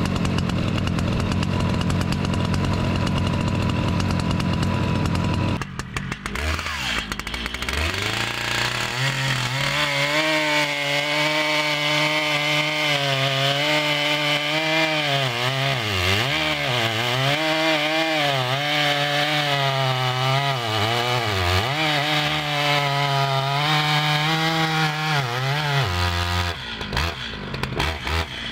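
Stihl MS 881 Magnum 121.6 cc two-stroke chainsaw running, then revving up about six seconds in and cutting into a large log. Its pitch sags and recovers again and again as the chain loads in the cut, and falls off briefly near the end. A new saw on its break-in, running a slightly rich fuel mix.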